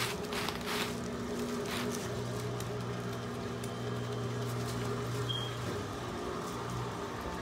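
Steady low hum, with a few brief rustles in the first two seconds and a short high chirp about five seconds in.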